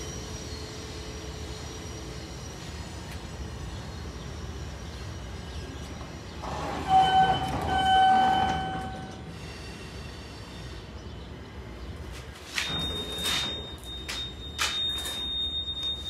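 KONE hydraulic elevator car running with a steady low hum. About seven seconds in, a louder pitched tone sounds twice in quick succession. Near the end come a few sharp clunks, then a steady high-pitched beep starts and keeps going.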